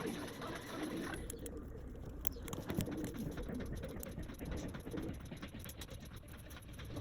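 Irregular light clicks and ticks of small hand tools working on a smartphone during a repair.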